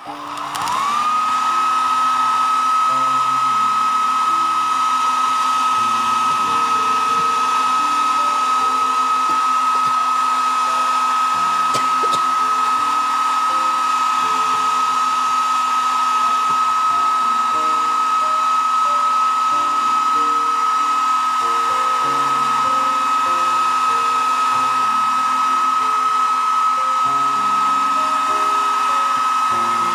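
Hair dryer switched on and running: its whine rises in pitch within the first second, then holds steady over rushing air. It is force-drying crackle medium on a painted glass vase so the paint cracks. Soft background music plays underneath.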